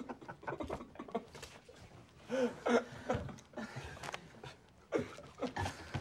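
Stifled laughter from several young men trying to keep quiet: muffled giggles, snorts and breathy squeaks, with small knocks and rustles. The loudest squeaky giggles come a little over two seconds in and again near the end.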